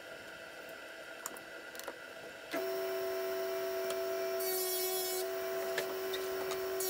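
SawStop table saw switched on about two and a half seconds in, its motor running with a steady whine. About two seconds later the blade cuts into a plywood panel with a brief hissing rasp over the whine.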